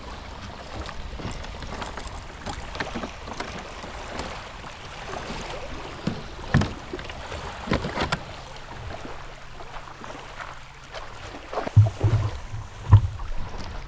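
Shallow water lapping against a beached plastic kayak, with scattered sharp knocks of fishing gear handled against the hull, about 6.5 and 8 seconds in. Near the end come a few heavy low thumps, the loudest sounds here.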